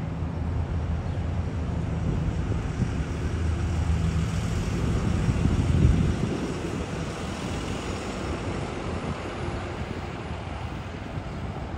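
Sound Transit Sounder commuter train pulling away: a steady low engine hum with rail and wheel noise, lessening after about six seconds as the train draws off.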